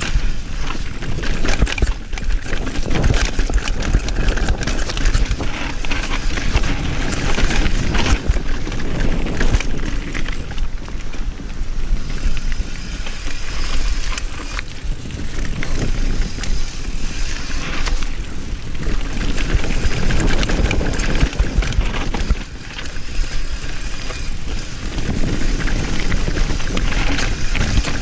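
Mountain bike descending a rocky dirt trail at speed: heavy wind noise on the microphone, tyres rolling over dirt and rock, and the bike clattering and rattling over bumps.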